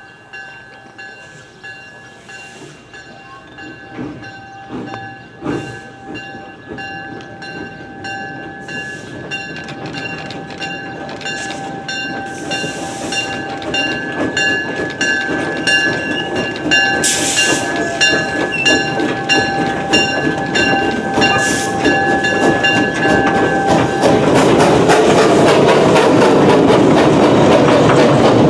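Narrow gauge Porter steam locomotive No. 58 approaching and passing close by. Its chuffing exhaust grows steadily louder and quicker. A steady high ringing tone sounds over it and cuts off suddenly about twenty-four seconds in.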